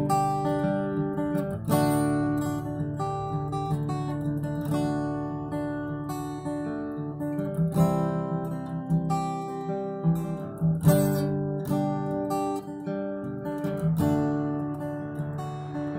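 Acoustic guitar strummed in a steady rhythm, the chords changing every few seconds; no singing.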